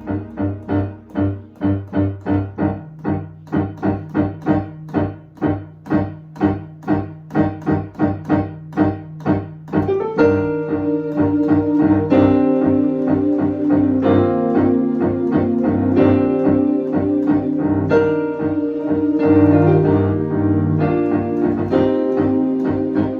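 Keyboard played worship-style: the left hand pulses a repeated low note about twice a second, setting the rhythm for the band, over a steady low tone. About ten seconds in, fuller held chords come in and change every couple of seconds.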